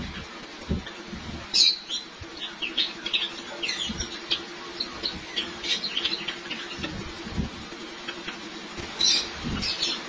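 A flock of white Java sparrows chirping: many short, high calls scattered throughout, several close together in quick runs, with a few dull low thumps in between.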